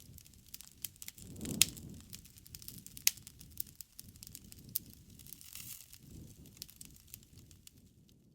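Wood fire crackling: irregular sharp pops and snaps over a low flame rumble, with the loudest pop about a second and a half in.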